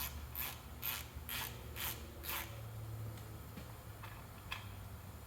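Ratchet wrench with a 13 mm socket clicking in short back-and-forth strokes, about two a second, stopping about two and a half seconds in, as it loosens the oil drain plug; one more single click near the end.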